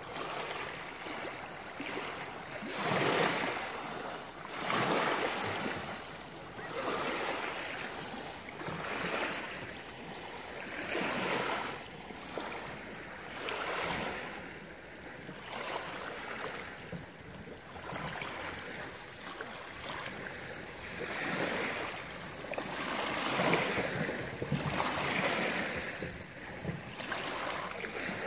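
Small sea waves washing onto the shore, one swell rising and falling about every two seconds.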